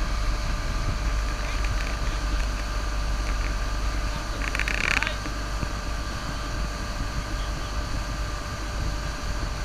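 Motorboat engine running steadily under way while towing a water skier, with a low rumble and the rush of the wake behind the boat.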